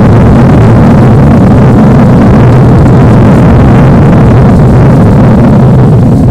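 Loud, steady rumbling roar of a cartoon destruction sound effect, played at full level, with most of its weight in the low end.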